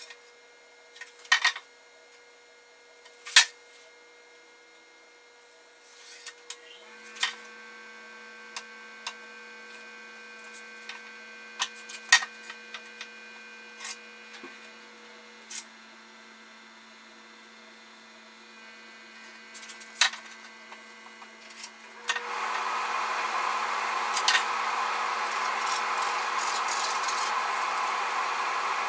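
Plywood being marked out with a metal square and pencil: scattered taps and clicks as the square is set down and shifted on the board, then a steady scratching of pencil on wood over the last several seconds. A faint steady hum runs underneath.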